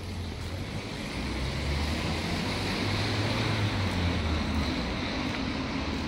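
A motor vehicle passing out of sight: a low engine hum under a hiss that swells to a peak around the middle and fades toward the end.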